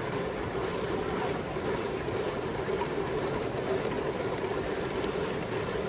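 Steady crowd noise in a domed baseball stadium: the general murmur of thousands of spectators, with no single shout, hit or chant standing out.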